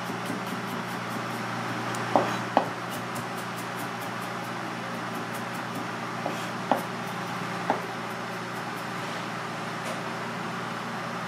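Chef's knife mincing garlic on a cutting board: quick light taps of the blade, with a few louder knocks, two close together about two seconds in and two more around seven seconds. A steady low hum runs underneath.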